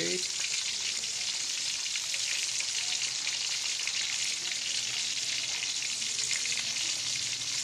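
Whole fish frying in hot oil in a stainless steel pot: a steady sizzle full of fine crackles.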